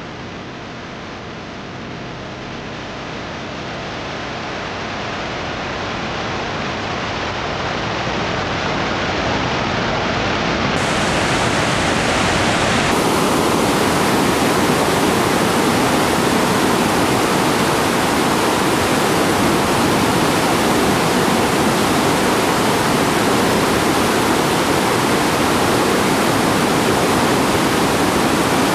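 White water of a fast mountain torrent rushing over boulders, a dense steady rush. It grows louder over the first dozen seconds or so, then holds.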